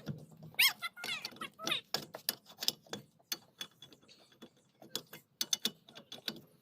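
Car wheel nuts being unscrewed with a wrench: a run of rapid metallic clicks and rattles, with a couple of short squeaks in the first two seconds.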